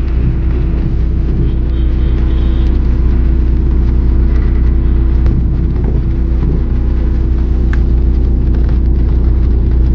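Car driving: a loud, steady low road rumble, heard from inside the cabin.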